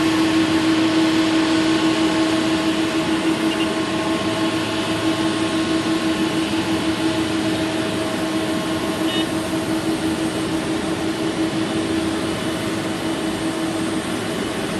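Boeing 777-200's jet engines whining steadily at low power, gradually getting quieter, with faint high chirps twice.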